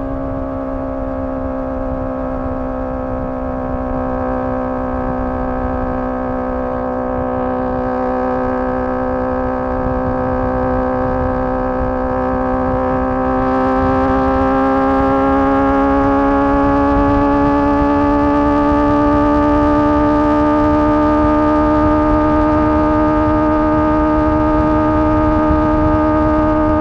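Honda CBR650R's inline-four engine through a MIVV MK3 carbon exhaust, held at high revs with a steady, high-pitched tone whose pitch climbs slowly as the bike gathers speed. It grows a little louder about halfway through.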